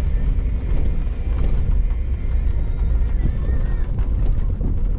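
Truck driving slowly over a rough dirt wash, heard from inside the cab: a steady low rumble of engine and tyres.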